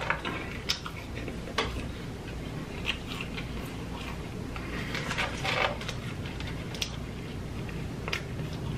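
Close-up chewing of fast food: scattered wet mouth clicks and smacks, with a short run of them about five seconds in, over a low steady background.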